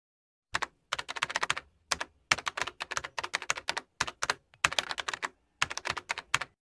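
Computer keyboard typing sound effect: quick key clicks in several short runs with brief gaps between them.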